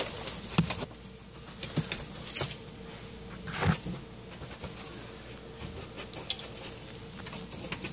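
Savannah monitor handling a mouse in its jaws on loose enclosure substrate: irregular knocks and scratchy rustles, the loudest about three and a half seconds in, over a faint steady hum.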